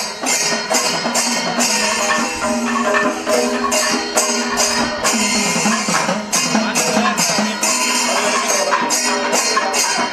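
Kerala panchavadyam temple ensemble playing: timila hourglass drums beaten over clashing ilathalam hand cymbals, with repeated sharp cymbal strikes.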